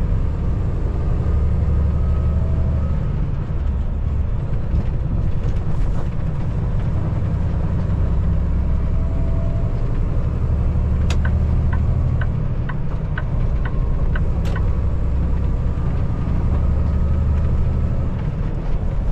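Semi truck running down the road, heard inside the cab: a steady low drone of diesel engine and road noise. For a few seconds past the middle there is a run of regular ticks, about two to three a second.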